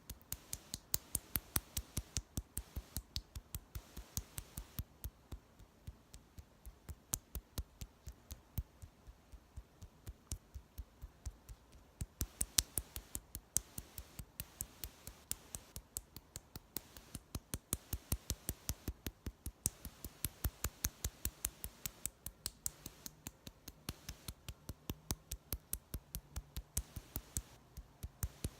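Rapid, even tapping of a makeup tool, about four taps a second, as in dabbing makeup on.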